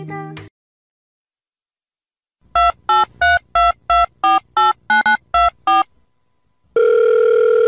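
A quick run of about a dozen short electronic beeps at changing pitches, about three a second, like a phone-keypad melody. After a pause comes one long, steady electronic tone lasting about two seconds. The tail of guitar music cuts off just before.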